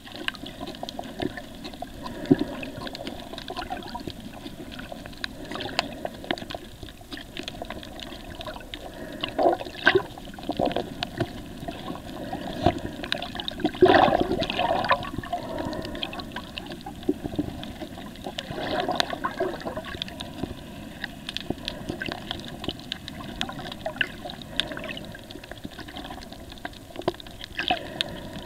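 Underwater water noise recorded by a camera submerged on a reef: a steady sloshing and gurgling with many short clicks scattered through it, swelling louder about a third of the way in, near the middle and about two-thirds through.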